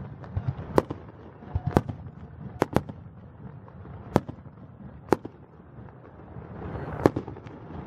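Aerial fireworks shells bursting in a display: about seven sharp bangs at uneven intervals, two of them in quick succession near the middle.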